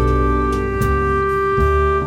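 Instrumental background music: held, organ- or woodwind-like notes that change every second or so.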